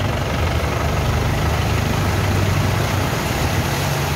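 An off-road vehicle's engine running steadily at low speed while its tyres swish through floodwater on the road.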